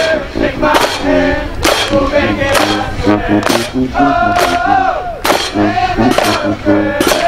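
Marching band playing: sustained brass and woodwind chords, with sharp, loud percussion hits from the drumline and cymbals about once a second.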